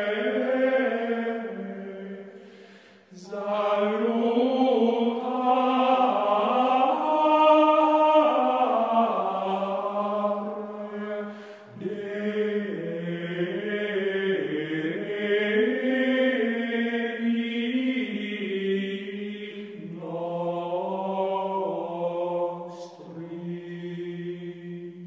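Slow sung chant: a voice holding long notes that step up and down in pitch, in long phrases with short breaks about three, twelve and twenty seconds in.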